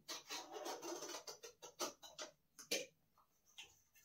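Packing tape on a cardboard shipping box being slit with a small blade and the flaps pulled open: a scratchy cutting noise for about the first second, then a few sharp rips and clicks of tape and cardboard.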